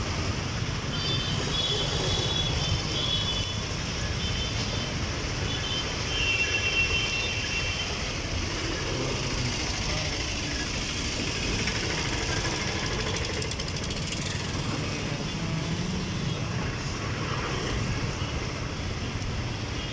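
Passenger train coaches rolling slowly past on the track, mixed with steady road traffic from autorickshaws and motor scooters passing close by. A few brief high-pitched tones sound in the first several seconds.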